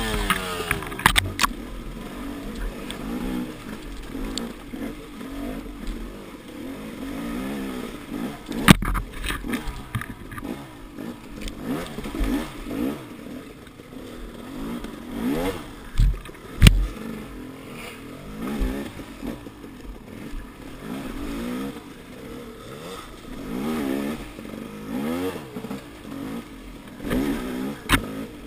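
KTM dirt bike engine revving up and down repeatedly as it is ridden over rough trail, heard close up from a camera on the rider. A few sharp knocks and clatters stand out, the loudest about nine seconds in and a pair around sixteen seconds.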